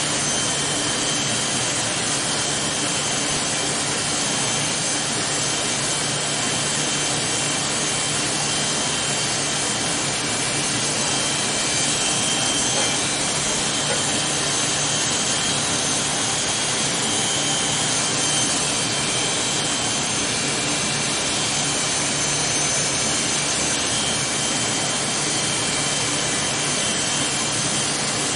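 Electric hair clippers running steadily, cutting short hair.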